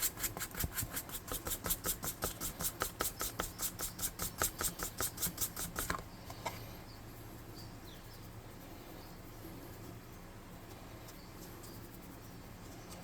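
Paintbrush scrubbing rapidly back and forth over a plastic miniature while dry brushing, about five strokes a second. The strokes stop about six seconds in, leaving faint room noise.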